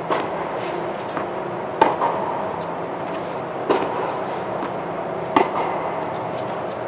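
Tennis rally: four racket strikes on the ball, alternating between the near and far player about every two seconds, the nearer strikes louder, with fainter ticks between them. The hits echo briefly in the indoor court over a steady hum.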